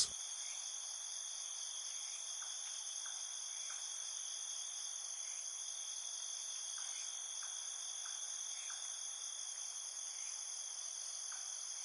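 A steady, high-pitched chorus of trilling insects, with faint soft ticks scattered through it.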